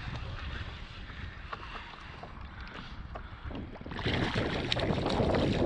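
Wind buffeting the microphone as a steady low rumble. About four seconds in, a louder rush of splashing water noise with scattered small clicks comes in.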